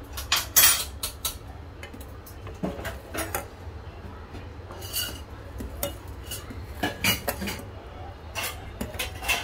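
Steel ladle knocking and scraping against a stainless steel saucepan while stirring a thin liquid mixture, irregular clinks every second or so, the sharpest about half a second in.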